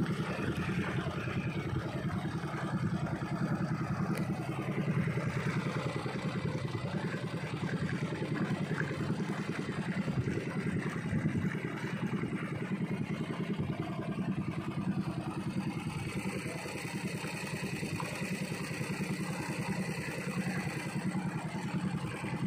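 A small fishing boat's motor running steadily at cruising speed, with a fast, even engine pulse.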